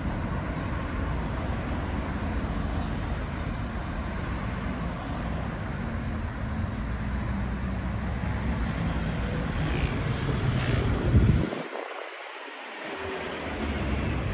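Steady rumble of road traffic with wind buffeting the microphone. The rumble swells about eleven seconds in, then its low end drops away briefly and returns.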